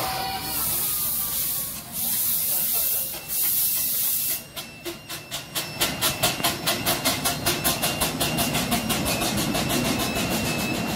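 10¼-inch gauge miniature steam locomotive starting away with its train: a loud steady hiss of steam for about four seconds, then exhaust chuffs that begin slowly and quicken to about five a second as it picks up speed.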